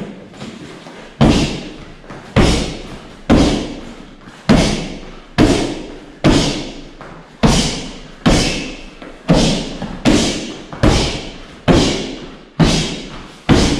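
Strikes landing on a hand-held striking pad, about one a second, each a sharp thud with a short echo from the hall.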